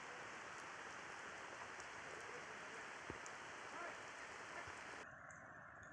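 Steady rain falling, an even hiss with a few scattered drop ticks and a low thud about three seconds in. The rain cuts off abruptly near the end.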